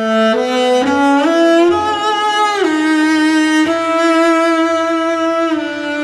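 Solo cello bowed in a slow melody of long sustained notes, close-miked through a Lauten Audio LA-220 FET microphone. The notes step upward over the first two seconds, then slide down into a lower held note about two and a half seconds in.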